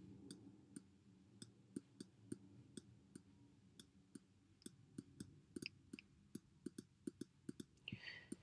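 Faint, irregular clicks, about three a second, of a stylus pen tapping on a tablet screen while handwriting.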